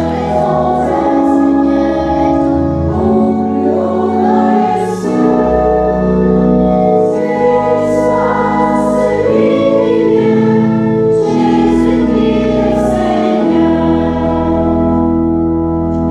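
A church congregation singing a hymn, led by a woman cantor, over an instrumental accompaniment with long held low notes.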